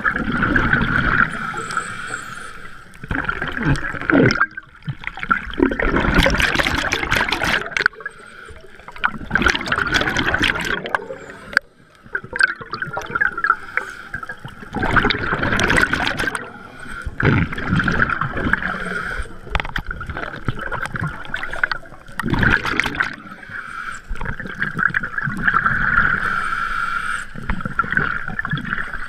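Scuba breathing heard underwater: bursts of exhaled bubbles from a regulator gurgle past every few seconds, about eight times, with quieter gaps between breaths. A steady high tone runs underneath.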